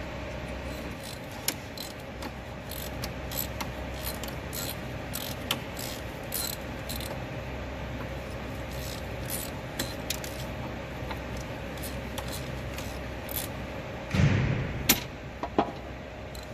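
Small clicks, taps and scraping of hand tools at a car radiator's drain plug as it is unscrewed, over a steady workshop hum with a faint tone. There is a louder clatter about fourteen seconds in.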